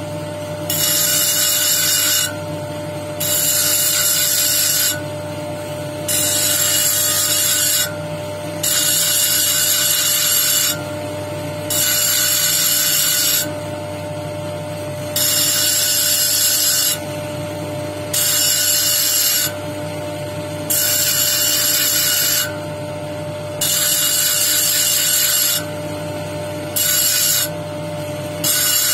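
Jasper cabochon on a dop stick pressed against a spinning lapidary wheel in repeated strokes: each stroke a hissing grind of about two seconds, coming every two to three seconds, over the steady hum of the wheel's motor.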